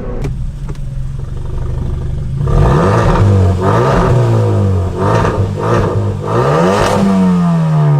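Hyundai Veloster Turbo's 1.6-litre turbocharged four-cylinder, running through a catless downpipe, idling steadily and then revved in several quick blips from about two and a half seconds in, with the pitch falling back toward idle near the end. The exhaust is loud.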